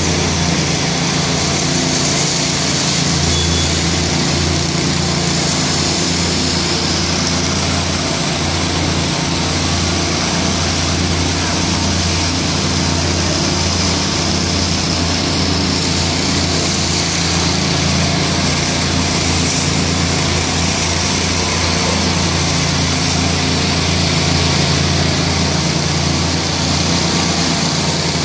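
Small petrol engines of power trowels running steadily at constant speed: a ride-on twin-rotor trowel and a walk-behind trowel finishing a fresh concrete slab.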